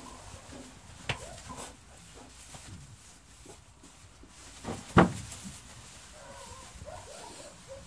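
A sheep and a goat jostling in a pen with wooden plank walls: a sharp knock about a second in and a loud thump about five seconds in. Faint animal calls come near the start and again near the end.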